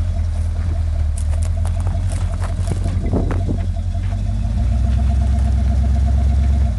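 Off-road vehicle's engine running steadily with a deep low rumble and scattered clicks and knocks. The rumble grows louder about four and a half seconds in.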